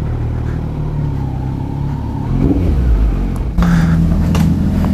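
Motor vehicle engine running with a steady low hum, revving up and getting louder about three and a half seconds in.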